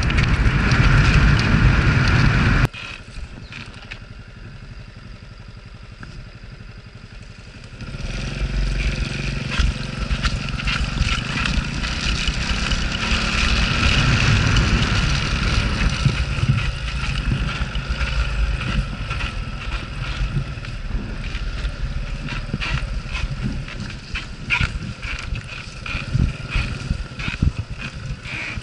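Honda Cub motorcycle running on the move, with a low engine rumble under wind noise on the microphone. The sound drops abruptly about three seconds in and returns about eight seconds in.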